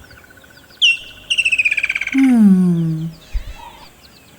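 Wild birds calling: a sharp rising chirp about a second in, a fast rattling trill, then a loud low call falling in pitch.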